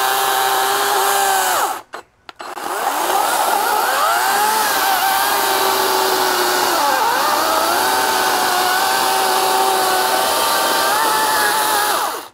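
EGO Power+ CS1804 cordless electric chainsaw running with a high motor whine. It stops briefly about two seconds in, then spins up again and cuts through an oak log, its pitch dipping a couple of times under load, before winding down at the end.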